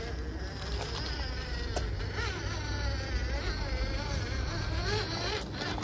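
Electric motor and gears of a Traxxas TRX-6 6x6 RC crawler whining, the pitch rising and falling with the throttle.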